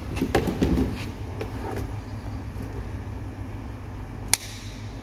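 Coaxial cable being handled and cut with a cutter: a few clicks and rustles in the first second, then one sharp snip about four seconds in, over a steady low background rumble.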